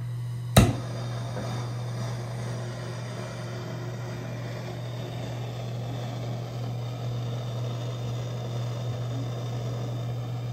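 MAP gas torch sparked with a sharp click about half a second in, then its flame hissing steadily as it is played on the base of a metal tub spout to heat the corroded connection loose.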